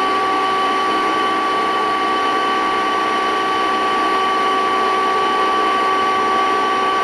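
Vacuum cleaner running steadily: a constant motor whine over a rush of air, holding the same pitch and loudness throughout.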